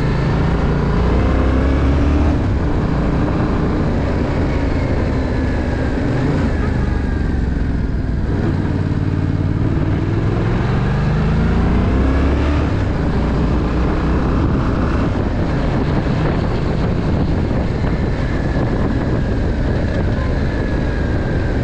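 Yamaha Tracer 700's parallel-twin engine heard from the rider's seat, its pitch falling and rising again several times as the throttle is eased and opened, over steady wind and road noise.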